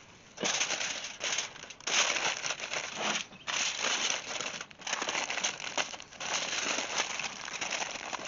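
A plastic oven bag rustling, then aluminium foil crinkling and crumpling in irregular bursts as it is folded and pressed around the bagged ribs.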